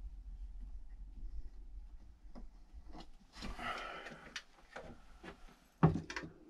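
Light handling noises from hands working at a wall with a fan and pencil: scattered small clicks, a rustle about three and a half seconds in, and one sharp knock near the end, over a low steady hum.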